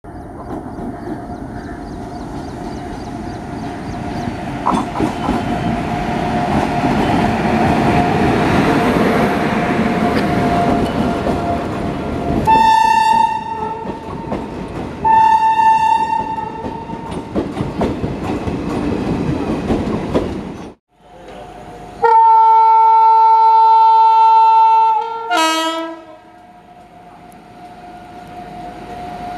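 A train running on the track with a rumble that builds for about twenty seconds, while an Indian Railways electric locomotive's air horn gives two blasts; after a short break, one long loud horn blast drops in pitch as it ends. An approaching electric locomotive's steady hum grows louder near the end.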